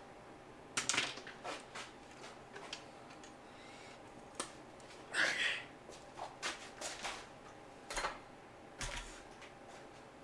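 Irregular clicks and clanks of hand tools and metal engine parts being handled, with a longer clatter about five seconds in.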